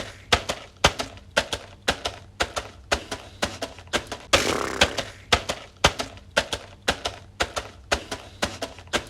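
A run of sharp, even taps or clicks, about two a second, with a louder rushing burst at the start and again about four seconds in.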